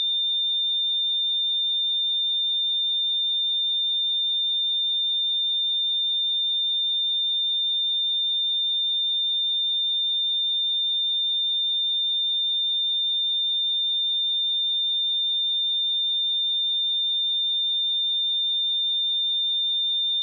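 A pure 3605 Hz sine-wave test tone, held steady at one high pitch and level, with nothing else.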